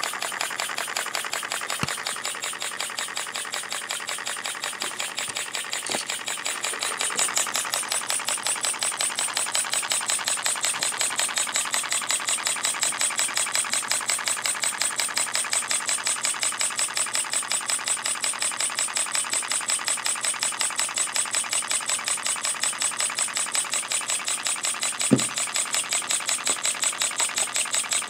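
Scratch-built model steam engine with a rotary valve, running on compressed air, exhausting in a quick, steady rhythm that picks up slightly about a quarter of the way in. A single sharp knock sounds near the end.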